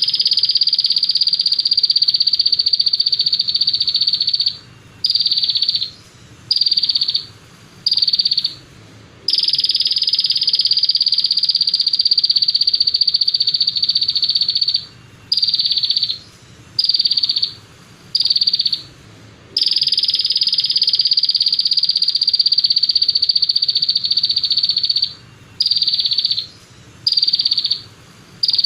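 A small songbird's rapid, buzzing high-pitched trill, used as a tutor song for caged songbirds. It comes as long unbroken trills of about five seconds, each followed by three or four short bursts of under a second, in a repeating cycle.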